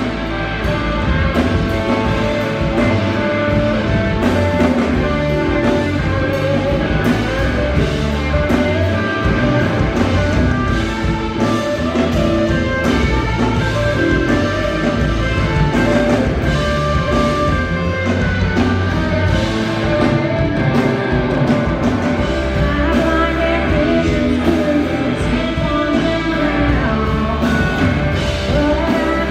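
Live blues-rock band playing a song at full volume: electric guitar over bass and drums keeping a steady beat.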